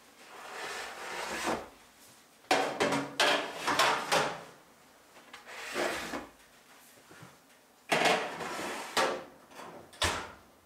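Metal baking sheets sliding and scraping across a wooden countertop in several separate strokes, with a sharp knock near the end.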